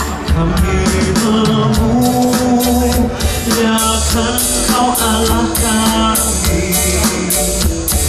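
Music with singing over a steady drum beat and bass.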